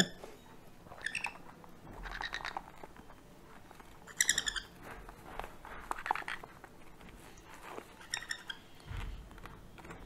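Sun conure chicks giving short, high calls while being syringe-fed: three clearer calls a few seconds apart, with fainter chirps between them, the feeding calls of hand-reared parrot chicks.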